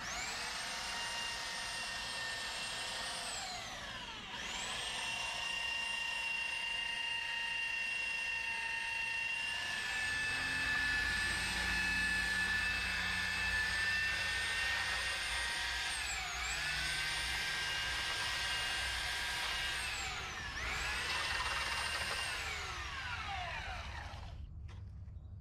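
Corded electric sander running on a wooden plank, a steady motor whine. Twice it winds down as it is switched off and starts straight up again, and near the end it winds down to a stop.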